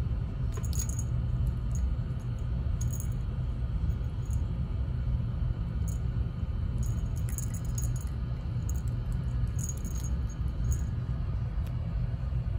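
Cat wand toy's crinkly streamers and ribbons rustling and rattling in short scattered bursts as the cat paws and bites at it, over a steady low rumble.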